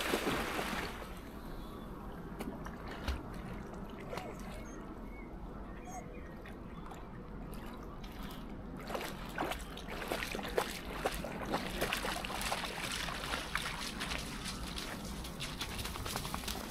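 Lake water lapping and sloshing in the shallows as a dog wades and swims out, with a splashy burst at the start. From about nine seconds in come many small sharp splashes and drips.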